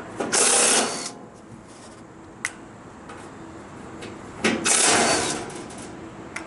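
A power drill-driver running in two short bursts, about a second in and again near the middle, backing screws out of the compressor unit's panels, with a couple of sharp clicks between.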